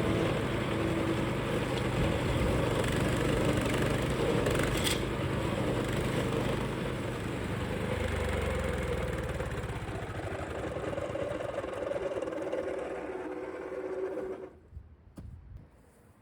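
DR Pro XL stump grinder's gasoline engine running with its cutter wheel spinning, easing off a little partway through and then shutting off suddenly near the end.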